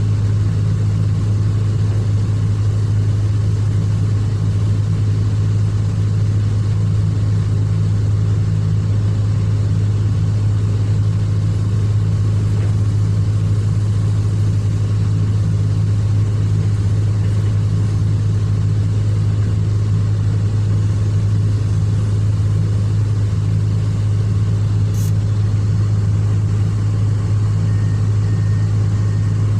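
Excavator's diesel engine running steadily at a constant speed, a loud, even low hum with no change in pitch.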